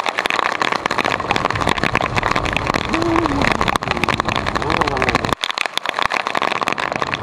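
Honda PCX150 scooter riding through heavy rain: a steady rush of wind and rain over the microphone, with spatters of drops, the tyres on the wet road and the scooter's engine running underneath.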